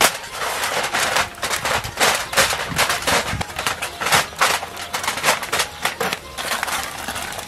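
Aluminium foil crinkling and tearing as a knife slits open a foil parcel: a dense, continuous run of sharp crackles.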